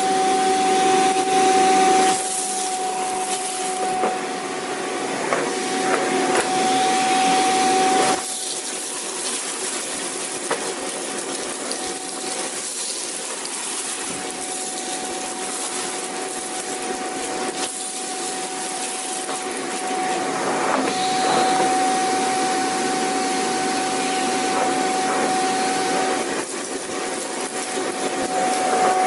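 Vacuum cleaner running: a steady motor whine over a rushing hiss. Its loudness swells and falls back by turns, with sharp drops about two and eight seconds in.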